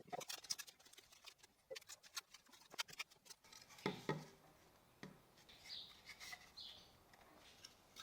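Clamps being released and masking tape peeled off glued wood pieces: faint scattered clicks and crackles, then two dull knocks about four seconds in. Faint bird chirps near the end.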